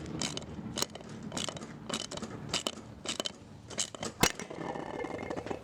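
Irregular crunching and crackling clicks, a few a second, with one sharp knock about four seconds in.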